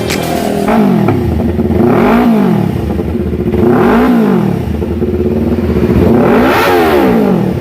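Yamaha R3's parallel-twin engine revved three times through a Replica Pro open-pipe muffler, each rev climbing and falling back to idle.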